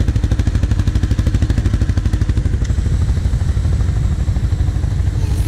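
ATV engine idling close by, a steady rapid low pulsing of its firing strokes.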